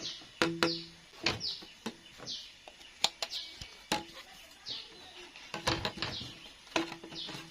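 A small bird chirping over and over in short, quick, falling chirps, mixed with sharp knocks and taps from hand work.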